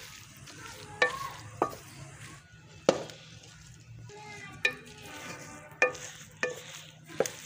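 Wooden spatula stirring grated carrots in a large aluminium pot, knocking and scraping against the metal about every second, some knocks leaving a brief ring. Under it a soft sizzle of the carrots cooking down in their own moisture for carrot halwa.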